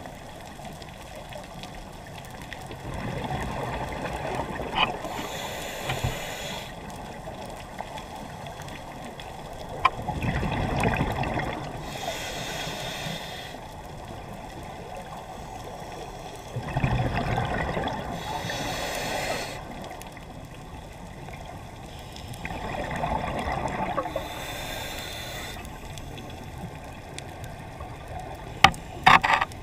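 Scuba diver breathing through a regulator underwater: four breaths about every six to seven seconds, each a gush of bubbling exhalation with regulator hiss. A few sharp clicks near the end.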